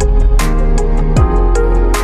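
Music with a steady beat: deep kick drums that drop in pitch, sharp cymbal hits and sustained chords.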